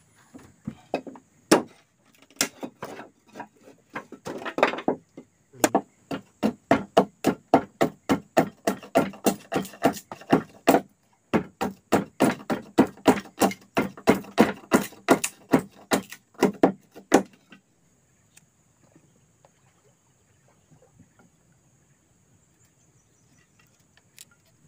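Wood struck over and over in fast, hard blows, about two to three a second. The blows come in two long runs separated by a brief break and stop a little over two-thirds of the way through, leaving only a few scattered knocks.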